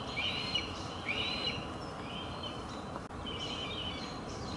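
A small bird calls in a series of short, repeated chirps over a steady background hum.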